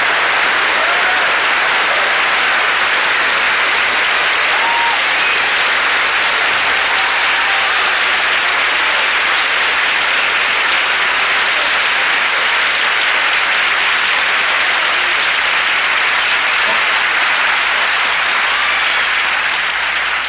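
Studio audience applauding steadily, with scattered cheers and whistles; the applause starts to die away at the very end.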